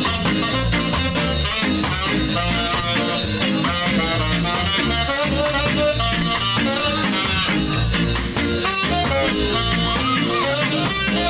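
Live ska band playing an instrumental number: saxophone melody over offbeat electric guitar, bass and drum kit, with a steady beat.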